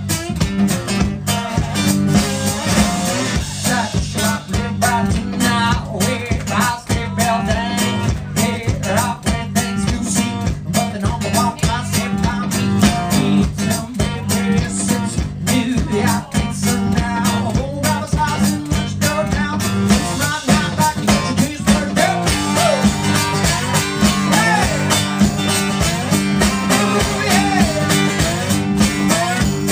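Live blues played by a one-man band: amplified guitar over a steady beat.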